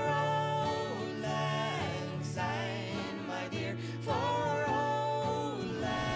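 Background music: a song with a singing voice carrying a wavering, gliding melody over steady bass notes.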